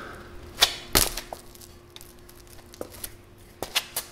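A few short, sharp metallic clicks and knocks as a steel bolt-on trailer hitch and its hardware are handled and positioned under the vehicle. The loudest comes about a second in, and a faint steady hum runs underneath.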